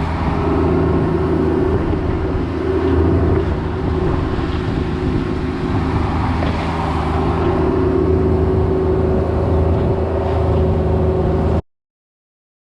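Cat 304 mini excavator's diesel engine running steadily under work, cutting off suddenly near the end.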